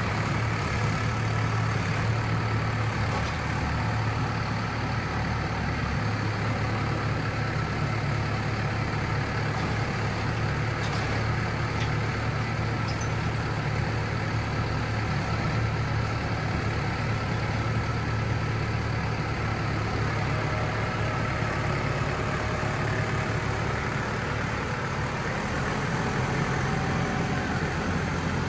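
Case IH Farmall 95C tractor's diesel engine running steadily as its front loader works a manure grapple into a pile and lifts a load. A few faint clicks come about halfway through.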